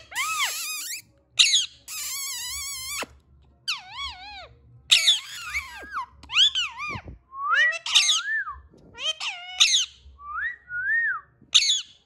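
Rose-ringed (Indian ringneck) parakeets calling: a string of short whistled calls that swoop up and down in pitch, some overlapping, with a harsh buzzing call lasting about a second, about two seconds in.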